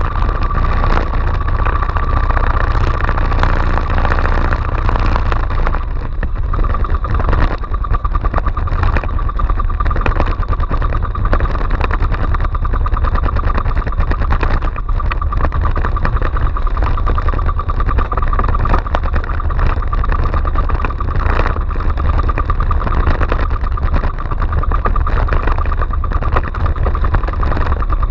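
Small outrigger fishing boat's engine running steadily under way, a continuous low drone with a steady whine on top, over wind and wave noise.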